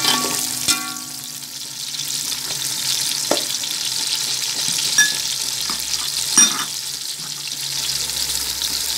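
Sliced onions sizzling as they fry in hot oil in a steel pot, with a metal spoon stirring them and giving a few sharp knocks and scrapes against the pot.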